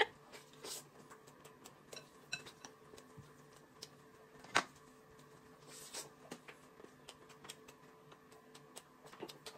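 Faint, scattered clicks of chopsticks against a bowl and plate during eating, with one sharper click about halfway through, over a faint steady hum.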